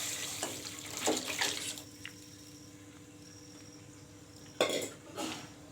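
Boiled mutton bone stock poured into a pan of fried tomato and spices, splashing loudly for about two seconds before settling to a quiet simmer. Two sharp knocks near the end.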